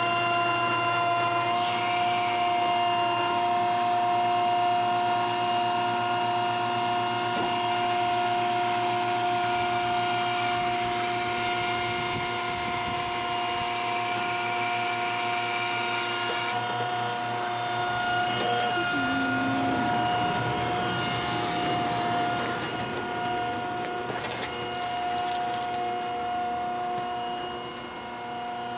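Steindl-Palfinger hay crane running: the motor in its operator's cabin gives a steady whine, its pitch shifting slightly about two-thirds of the way through as the crane moves.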